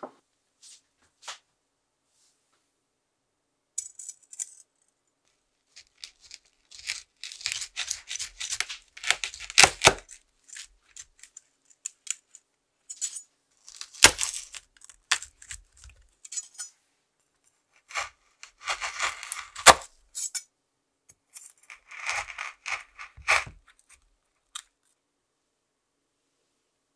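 Chef's knife cutting through a slab of marshmallow nougat packed with nuts and biscuits: a crackly crunch as the blade goes down, ending in a sharp knock on the wooden cutting board, four cuts in all.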